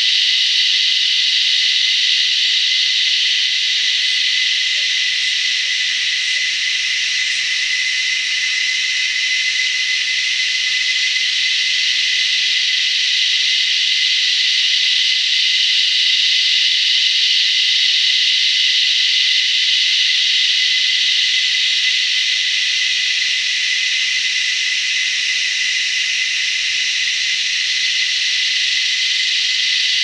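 Cicadas singing in chorus: a loud, steady, high-pitched buzz with a clear whistle-like tone running through it.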